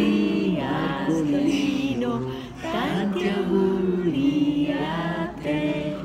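Several voices singing together without instruments, in held phrases with two short breaks for breath.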